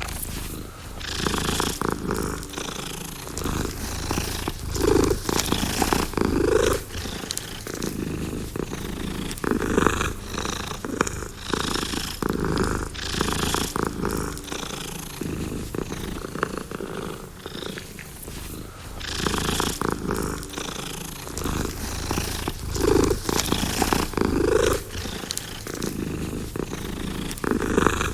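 Domestic cat purring steadily, the purr swelling and easing with each breath in and out.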